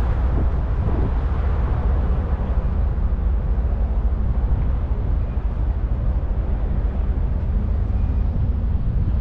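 Steady low rumble of a large cruise ship moving off under way.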